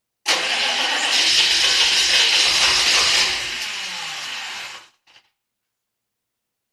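A 6.5 L turbo diesel being cranked on its starter without catching, under a loud, even hiss, stopping sharply about five seconds in. The engine won't start.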